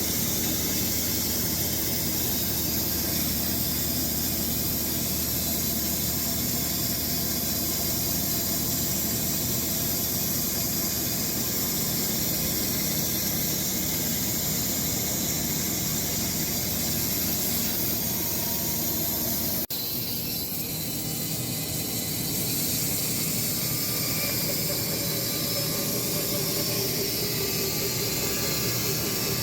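Sawmill running steadily while cutting through a Bastogne walnut log: a continuous machine noise with a hiss, changing abruptly about two-thirds of the way through.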